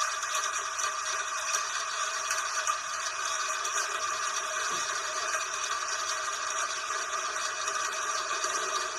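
Steady rain falling: an even, dense hiss with fine crackle, with no thunder.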